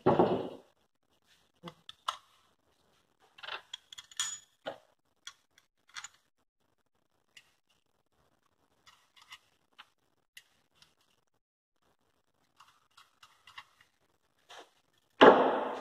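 Scattered light clicks and knocks from a Honda J32 intake manifold and its throttle body being handled on a metal workbench, with a louder thud right at the start and another near the end.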